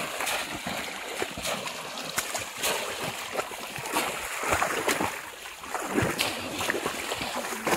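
Shallow muddy water splashing and sloshing as a bamboo polo fish trap is thrust down into a flooded rice paddy and people wade and grope through the water, in irregular splashes.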